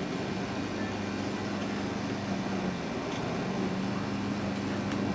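Steady background hum of a machine with a low, even tone and no breaks.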